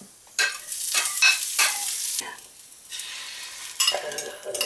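Hot stainless steel frying pan sizzling as beaten tamagoyaki egg mixture goes in. A loud hiss for about the first two seconds, then quieter sizzling with small clicks.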